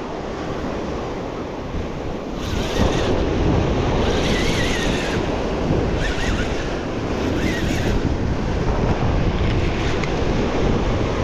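Sea surf breaking and washing up the shore, the wash surging louder about two and a half seconds in and several times after, with strong wind buffeting the microphone.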